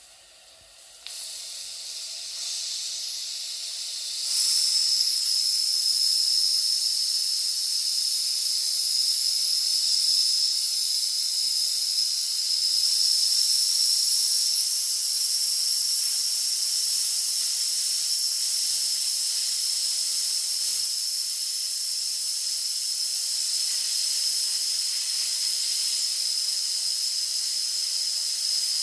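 Steam hissing from a toy steam engine, starting about a second in and growing louder in steps until about four seconds in, then holding steady with a thin high tone on top.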